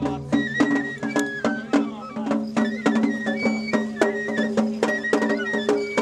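Japanese festival bayashi music: a high bamboo flute melody over quick, regular drum strikes.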